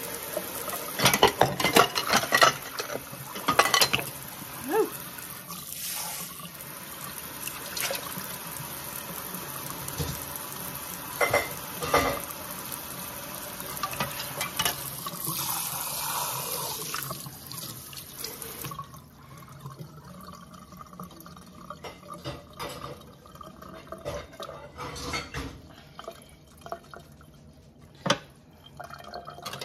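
Touchless kitchen faucet running into a sink full of dishes being washed by hand, with clinks and knocks of pans, a glass dish and utensils. The running water stops about two-thirds of the way through, leaving quieter clatter of dishes being scrubbed.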